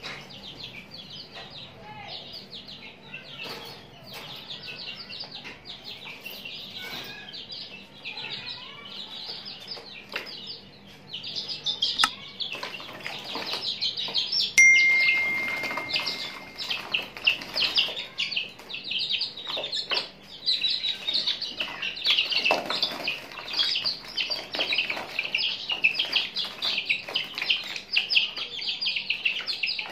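A group of young chicks peeping continuously in rapid high chirps, louder and denser from a little before halfway, with wings flapping and splashing in shallow water. A short steady electronic tone sounds for about two seconds near the middle.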